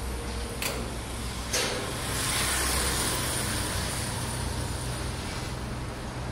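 Automated car-parking lift raising a car on its pallet: a steady low motor hum, with two sharp clanks in the first two seconds, then a louder rushing noise for a few seconds in the middle.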